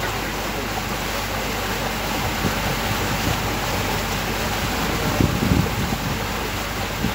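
Tour boat's engine running steadily, with water washing past the hull and wind on the microphone. A few low thumps come a little after five seconds in.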